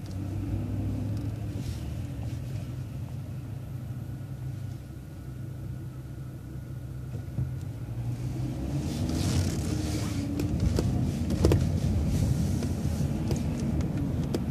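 City transit bus heard from inside, its engine running with a steady low hum while it turns, then growing louder about two-thirds of the way through as the bus pulls away and picks up speed, with road noise and a few clicks and rattles from the body.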